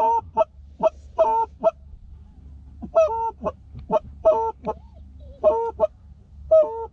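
Canada goose calls blown in quick bursts of short honks and clucks, some notes cracking between a low and a high pitch, with a short pause about two seconds in. The calling is meant to draw in approaching Canada geese.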